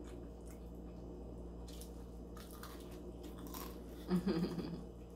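Close-miked eating sounds: scattered small crunches, clicks and chewing as pizza and chicken wings are eaten, with a short closed-mouth hum about four seconds in.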